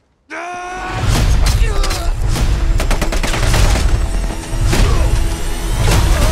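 Loud action-trailer sound mix that cuts in from silence: a man's yell, then dramatic music with deep booms and many sharp cracks and blows.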